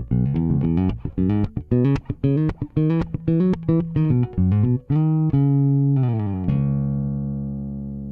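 Solo electric bass guitar played through an Aguilar DB 599 compressor pedal: a run of quick plucked notes, then a few held notes, the last left ringing and slowly fading.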